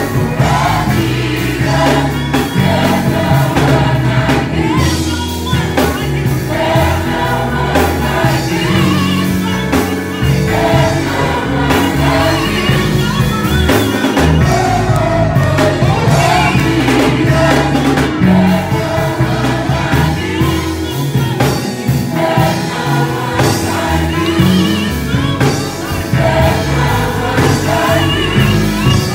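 Gospel choir singing with electronic keyboard accompaniment, sustained and continuous.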